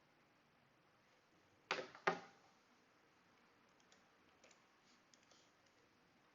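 Clicking at a computer: two sharp clicks about half a second apart, then a few faint light ticks.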